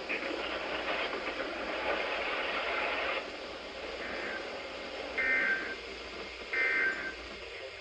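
NOAA Weather Radio broadcast with a steady hiss for about three seconds. Then come short, two-tone data bursts about a second apart, three of them strong: the SAME end-of-message codes that close the weekly test.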